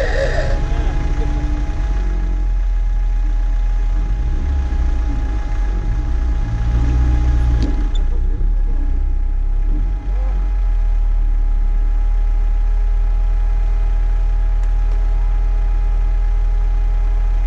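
Off-road 4x4's engine running at idle while the vehicle stands still, a steady low hum, its note briefly rising and falling about halfway through.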